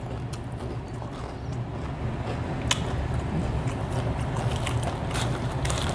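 Close-up mouth sounds of someone chewing fried chicken: soft wet smacks and a few sharp clicks over a steady low hum.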